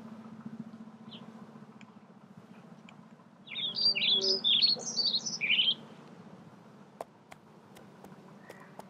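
A songbird singing a quick run of chirping notes for about two seconds in the middle, over a steady low hum. A few sharp clicks come near the end.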